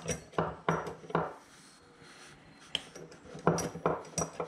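A bench vise being worked to clamp a car sunshade roller: a string of short metal-on-metal clinks and knocks from the vise's steel handle and jaws, a few in the first second, a quieter stretch in the middle, then several more near the end.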